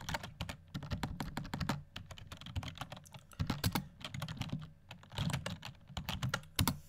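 Typing on a computer keyboard: quick runs of key clicks broken by short pauses, as shell commands are typed.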